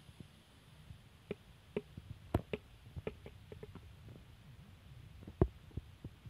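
Tongs clicking and tapping against the inside of a plastic bucket and the millipedes in it: a scattered run of light clicks, with one louder knock near the end.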